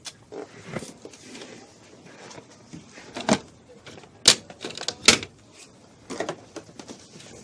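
A few sharp clicks and knocks, the loudest three about three, four and five seconds in, with fainter rustling and tapping between.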